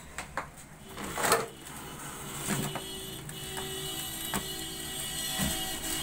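HP laser printer's drive motor running with a steady hum and whine, with scattered sharp clicks from the gear train, which is jammed by a coin lodged inside. About a second in there is a brief, louder handling noise.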